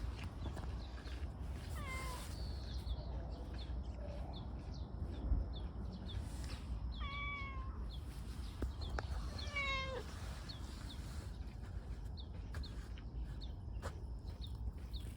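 A cat meowing three times, each call falling in pitch at its end.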